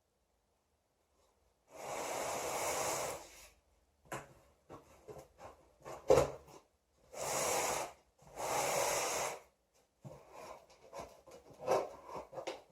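A cardboard shipping box being opened by hand: three long scraping strokes, like tape being pulled or sliced, with rustling, handling clicks and one sharp knock about six seconds in.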